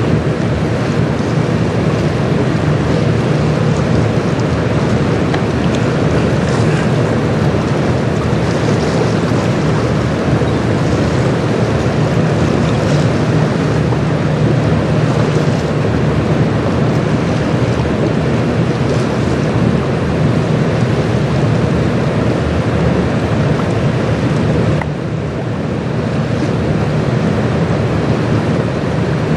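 Steady low rumble of the self-unloading lake freighter Algoma Niagara passing: engine drone mixed with the rush of water along its hull, with some wind on the microphone. The higher hiss drops off for a moment about 25 seconds in.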